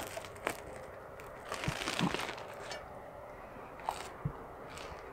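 A person biting into and chewing a big toasted falafel and guacamole sandwich: crunching of the bread crust and wet mouth noises, busiest about two seconds in, with a few separate clicks.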